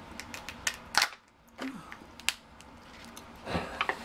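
King crab leg shell cracking and snapping as it is broken apart by hand: a series of sharp cracks, the loudest about a second in.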